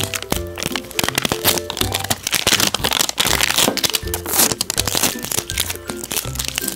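Plastic wrapping crinkling as it is picked at and peeled off an LOL Surprise ball, in many quick irregular crackles, over background music with a steady bass line.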